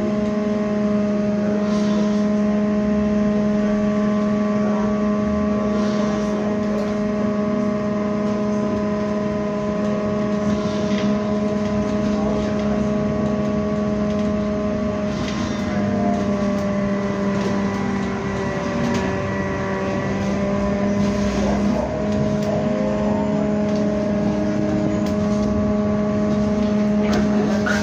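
Inside a MAZ-203T70 trolleybus under way: a steady electric hum of several held tones, over road noise.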